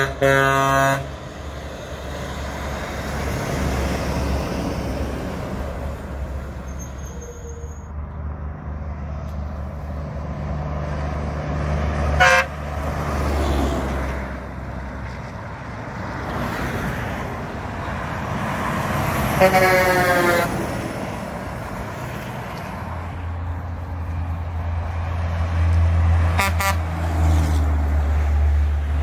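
Heavy semi trucks pass one after another, their diesel engines and tyres swelling and fading. Truck horns are sounded in short blasts: one at the start, one about 12 seconds in, a longer one about 20 seconds in, and more near the end.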